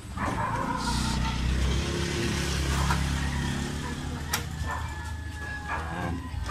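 A low, steady droning rumble that fades out about two seconds in, followed by a few sharp clicks from handling a clear plastic RAM package.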